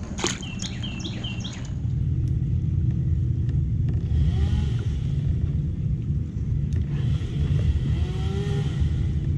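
A steady low rumble that grows louder about two seconds in, with a short run of high bird chirps near the start.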